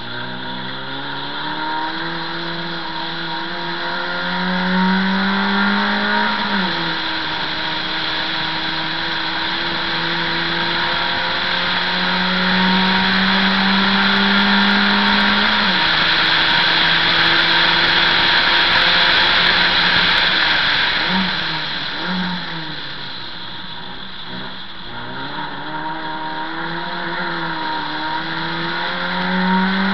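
A 1300 cc race car engine, heard from inside the car, revs up hard through the gears with a sharp drop in pitch at each of two upshifts. It then lifts off for a corner with a couple of quick revs on the downshifts and accelerates again. Road and wind noise rise at top speed.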